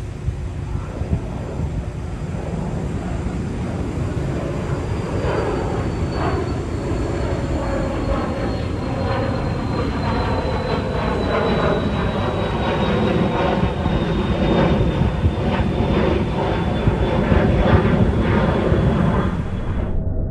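Small business jet climbing out after takeoff: steady jet engine noise with a thin high whine that slowly falls in pitch, growing gradually louder.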